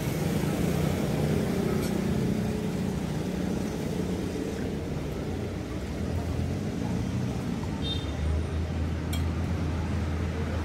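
Steady low engine hum of road traffic, with a few faint clinks of a spoon against a bowl.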